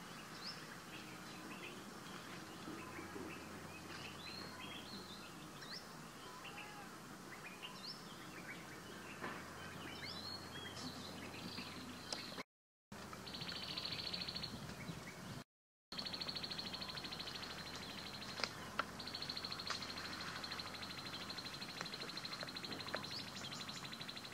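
Outdoor ambience of small birds chirping in short, quick calls. About halfway through, the sound cuts out completely twice for a moment. After that a steady, high, rapidly pulsing buzz takes over, with a few sharp ticks.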